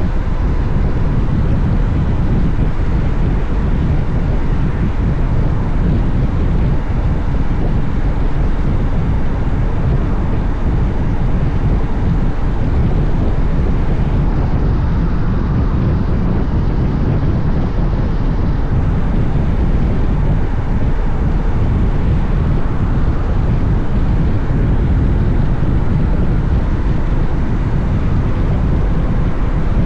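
Steady wind rushing over the camera microphone with road and engine noise underneath, as a Honda X-ADV is ridden at speed in a strong wind.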